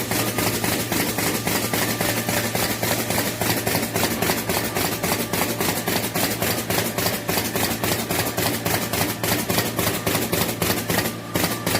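Automatic magnet-attaching machine for booklets and flyers running, clacking rapidly and evenly at about five or six strokes a second over a steady motor hum, dipping briefly near the end.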